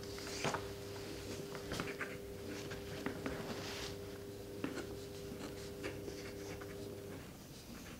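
Light handling noises: scattered soft clicks and rustles as hands move small examination instruments and the patient's foot on a cloth sheet. Underneath is a steady low electrical hum that stops near the end.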